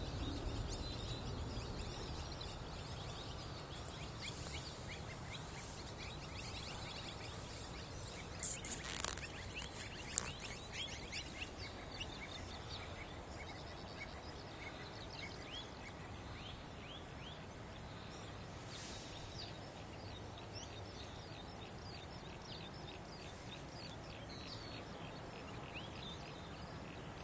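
Birds chirping over steady low background noise, with a few brief louder sounds about nine and ten seconds in.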